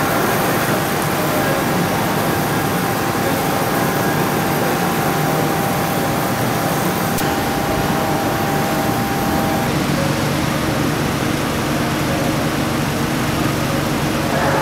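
Steady mechanical hum with a faint steady whine that stops about ten seconds in.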